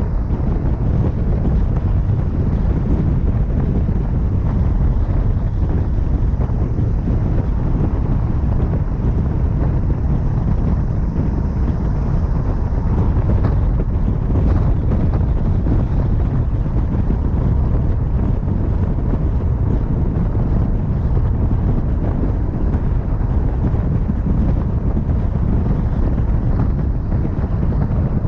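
Steady low rumble of wind on the microphone and road noise from a vehicle driving along a highway.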